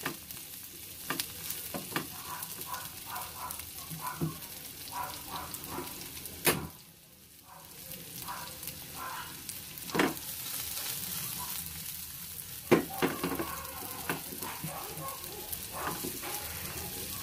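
Onion rings sizzling in a little oil in a nonstick frying pan as they are sautéed, with a black plastic spatula scraping and tapping against the pan as it turns them. The sizzle drops away for about a second near the middle.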